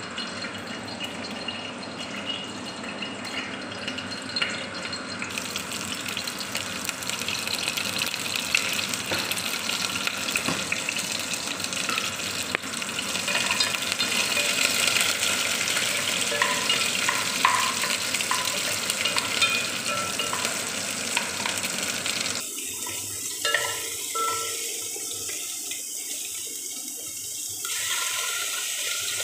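Water running and splashing into a cooking pot as chicken and vegetables go in, with a few light knocks now and then. The sound thins out abruptly near the end.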